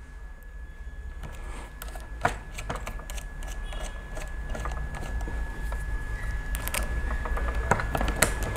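Light clicks and handling noise of small plastic and metal parts as they are fitted by hand onto a rotary tool's flexible-shaft handpiece, with a faint steady high tone beneath.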